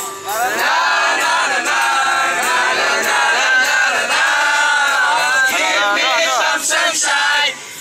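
A crowd of young people singing and shouting together loudly, many voices at once, with a brief drop near the end.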